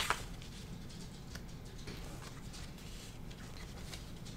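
A few faint, light clicks over a low, steady hum, the sharpest click right at the start.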